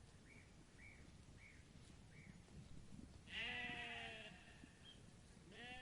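Sheep bleating: one call of about a second near the middle, and another starting near the end. Four faint, short, high chirps come in the first two seconds.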